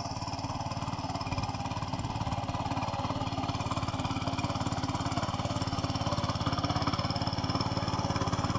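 Forte 1050G walk-behind tiller's petrol engine running steadily under load as its rotary tines churn loose garden soil, growing slowly louder as it comes closer.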